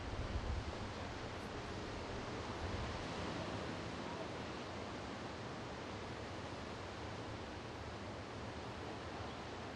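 Steady, even hiss of outdoor ambience, with low wind buffeting on the microphone in the first second.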